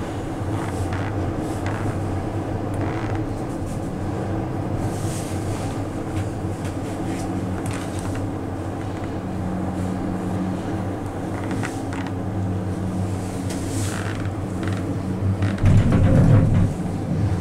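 Steady low hum and rumble inside a 2005 Doppelmayr eight-seat gondola cabin travelling along the rope, with a louder rumble lasting about a second near the end.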